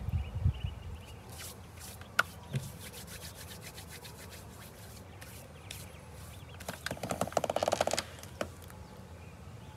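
Hands rubbing and brushing against each other in a spell of light scratchy sounds, then a rapid run of clicks lasting about a second near the end.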